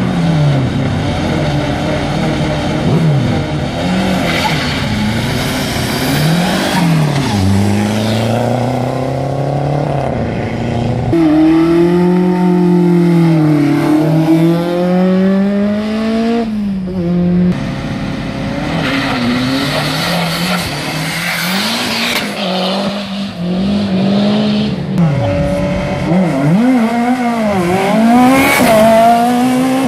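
Race car engines revving hard at the start of an uphill slalom, pitch repeatedly climbing and dropping as the throttle is blipped and the cars pull away, one car after another.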